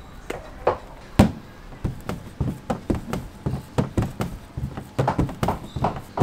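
Rolling pin knocking and clacking on a stainless steel worktable while bun dough is rolled out. The knocks are uneven, with one sharp loud one about a second in, then become a quick rhythmic clatter near the end.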